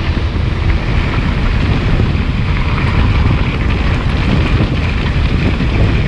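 Heavy wind buffeting on the microphone of a camera riding on a mountain bike moving along a dirt road, a steady rumble with no letup.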